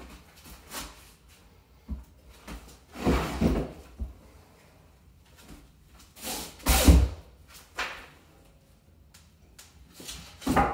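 A pry bar levering a heavy cast iron radiator on wooden boards and a dolly, with wood and metal clunking and scraping. There are three main bursts, about three, seven and ten and a half seconds in, the middle one loudest, with a few lighter knocks between.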